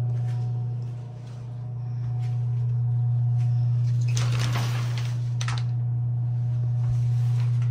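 A steady low electrical hum fills the small bathroom. Around four to five and a half seconds in, a shower curtain rustles and is pulled aside.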